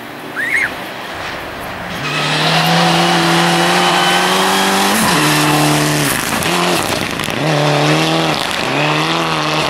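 A rally car's engine comes in loud about two seconds in and is held at high revs as the car slides through a snowy corner. There is a sharp drop in revs about five seconds in and several more short dips after it. About half a second in there is a short, high, rising squeak.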